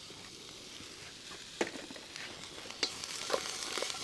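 Chopped onions, peppers, chillies and garlic sizzling in hot oil in a wok, with a wooden spatula scraping and knocking against the pan from about a second and a half in. The sizzling and stirring grow louder over the second half.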